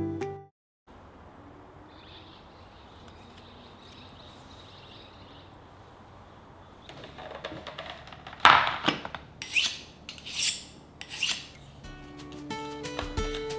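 A few short rubbing and scraping sounds of food preparation, about a second apart. The loudest comes about halfway through, over a faint steady hiss, and plucked guitar music comes back near the end.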